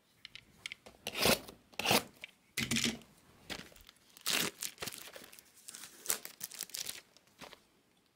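Wrapping being torn and crinkled off a sealed Bowman Chrome trading-card hobby box, in a string of short ripping bursts that stop near the end.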